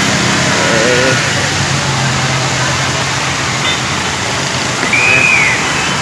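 Tall fountain jets spraying and falling into the pool: a loud, steady rush of splashing water, with a steady low hum underneath and a short high whistle-like tone that rises and falls about five seconds in.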